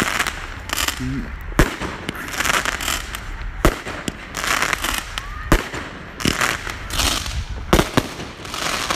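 A 200-gram consumer fireworks cake firing a string of shots, a sharp report every second or two followed by crackling breaks. It is loud for its size, almost like a salute, and sounds like a 350 to 400 gram cake.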